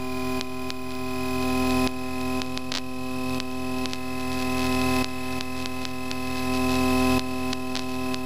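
Cessna 152's engine running steadily, heard as a hum of several fixed tones through the cockpit headset intercom, its level swelling and dropping back every second or two.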